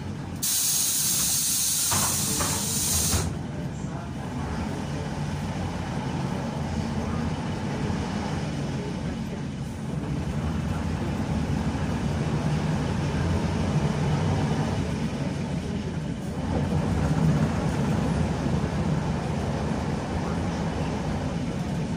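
Inside a Neman 5201 city bus: a loud hiss of compressed air from the bus's pneumatic system for about three seconds near the start, then the bus engine's steady drone as it drives, growing louder a little past the middle.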